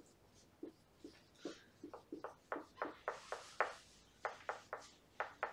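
Dry-erase marker writing on a whiteboard: a quick run of short squeaky strokes and taps.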